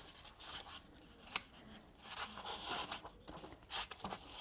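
Pages of a hardcover book being turned and handled: faint paper rustles and soft swishes with a few light taps, one sharper tick about a second and a half in.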